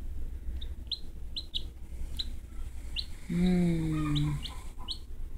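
Black Australorp chick peeping, short high peeps repeating every half-second or so. About three seconds in, a louder low hum lasts about a second, falling slightly in pitch.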